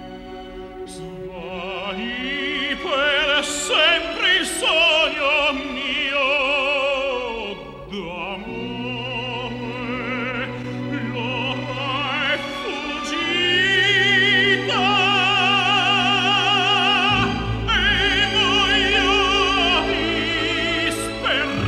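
Operatic music on the soundtrack: a singer with wide vibrato over an orchestra, getting louder in the second half.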